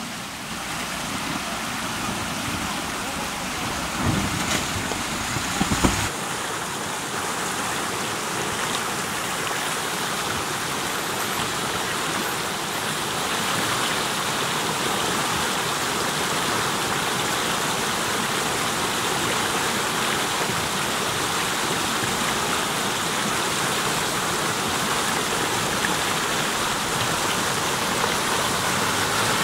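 River water rushing steadily over a flooded road ford, spilling over the crossing's edge as white water. A few low thumps come about four to six seconds in.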